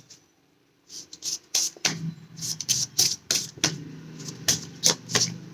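Irregular light clicks and taps of tarot cards being handled on a table, roughly three or four a second, starting about a second in after a brief silence.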